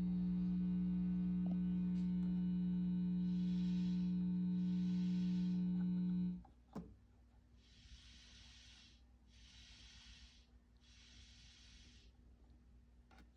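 Marshall SV20H valve guitar amplifier head giving off a steady mains-type hum with a buzzy stack of overtones, which cuts out suddenly about six seconds in. A click follows, then several separate bursts of high hiss, each lasting about a second.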